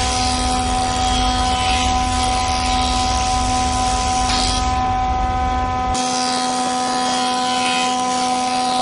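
Machinery running steadily, a mix of constant hum tones and hiss, with a deep low rumble that cuts off about six seconds in.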